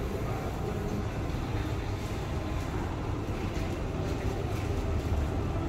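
Steady low rumble of indoor background noise, with no single clear source standing out.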